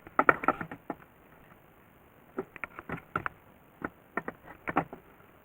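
Irregular light clicks and knocks in three short clusters, like small objects being handled and set down on a workbench.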